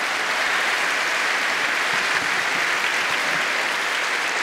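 A large audience clapping steadily, a dense, sustained applause at the end of a speech.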